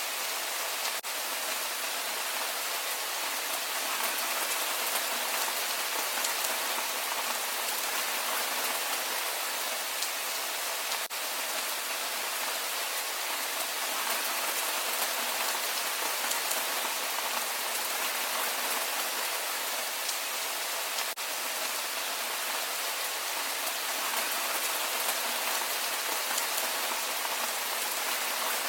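Steady rain falling, a dense even hiss made of countless small drop impacts, with a brief dip in level about every ten seconds.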